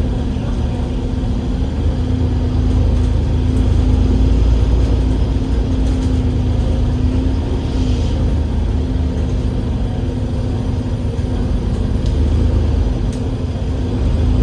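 Cummins L9 diesel engine and drivetrain of an Enviro500 MMC double-decker bus running under way, heard on board: a steady low rumble with a steady hum over it that weakens about seven seconds in.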